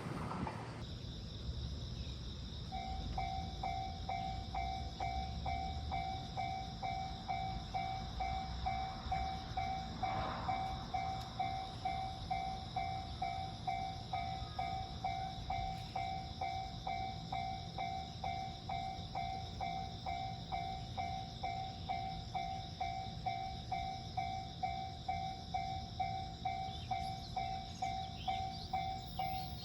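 Japanese level-crossing warning bell ringing, starting about three seconds in: an even, rapid kan-kan of about two strikes a second, the signal that a train is approaching and the barriers are closing.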